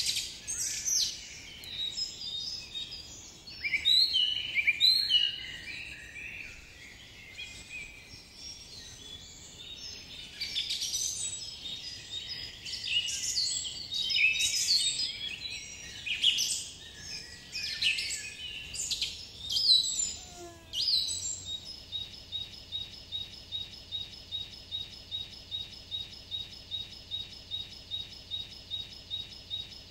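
Birdsong: many varied high chirps and trills. About two-thirds of the way through, it gives way to a steady high chirp repeating about two and a half times a second.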